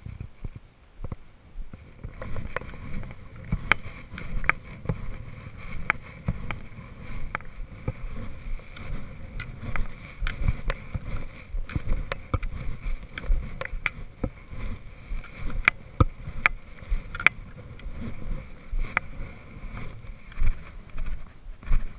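Footsteps crunching on a rocky scree path, with sharp irregular clicks of trekking pole tips striking stone, over wind buffeting the microphone.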